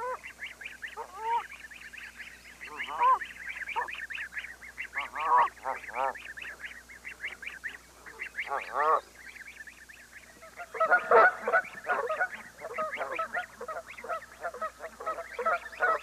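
Canada geese honking again and again, with a dense flurry of honks about eleven seconds in, over a steady run of high, quick peeping from the goslings.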